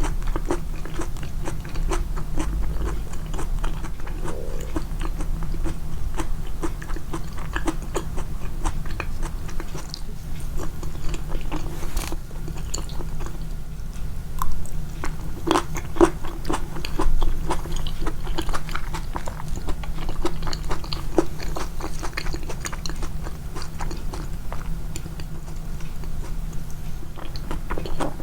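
Close-miked eating, chewing and biting food with many small crisp crunches in quick succession, over a steady low hum.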